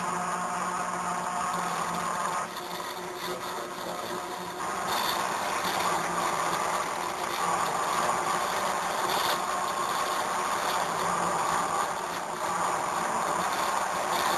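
Stepper motors of a CNC hot-wire foam cutter running as the machine moves the wire through the styrofoam, a steady mechanical whir with held tones. The sound shifts twice early on as the axes change their motion.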